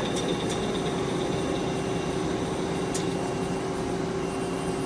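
Mori Seiki SL-200 CNC lathe running with its spindle turning at about 500 RPM, a steady hum with a constant mid-pitched tone and a faint high whine, while the tool takes a very light facing pass across the part. A few faint ticks sound over the hum.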